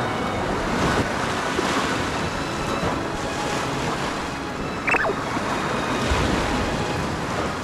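Sea surf washing against a rocky shore, with wind buffeting the microphone; a brief high chirp about five seconds in.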